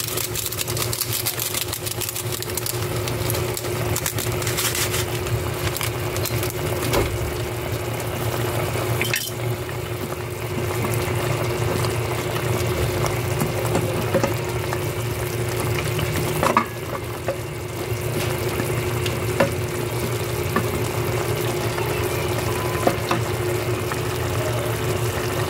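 Chicken and squash pieces simmering and sizzling in a pot as they are stirred, with occasional sharp clinks of the utensil against the pot, over a steady low hum.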